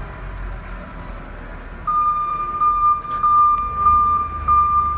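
A truck's electronic backup alarm sounding a steady high-pitched tone that starts about two seconds in and pulses slightly, over the low hum of the truck's engine.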